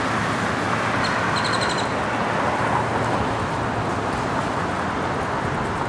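Steady road traffic noise, with a short quick run of high bird chirps about a second and a half in.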